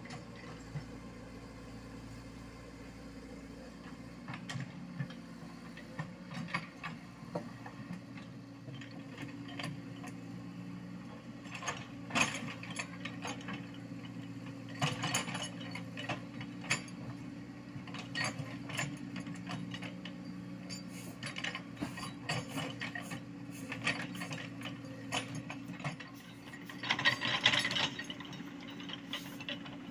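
Komatsu PC75UU mini excavator's diesel engine running steadily, overlaid from a few seconds in with irregular clatter and scraping of soil and stones being worked on the road surface, in louder bursts and loudest near the end.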